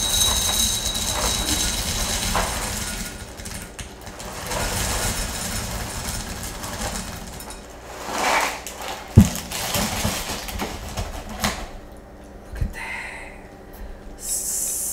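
Dry corn-puff cereal and marshmallows poured from a plastic bag into a glass bowl, a dense rattling patter on the glass, followed by rustling of the plastic bag and a couple of sharp knocks.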